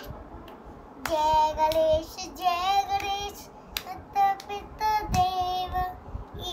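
A young child singing in a high voice, long held notes in about four short phrases, with a few sharp hand claps between them.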